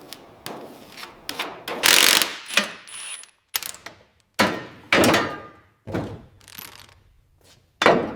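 Hand tools working on metal car parts: a run of separate sharp knocks, clicks and ratchet-like clatters, with a brief high metallic ring about three seconds in.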